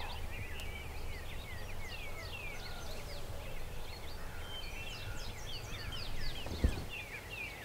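Several songbirds singing, many short chirps and slurred phrases, over a steady low rumble. A single dull thump near the end.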